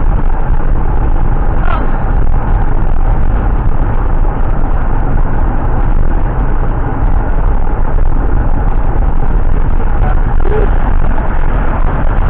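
Steady, loud road noise of a moving car: a low rumble with an even rush of tyre and wind noise.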